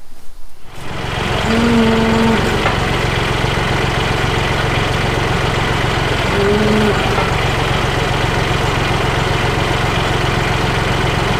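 Tractor engine coming on about a second in and then running steadily under throttle. Twice a short, steady hoot-like tone sounds over it.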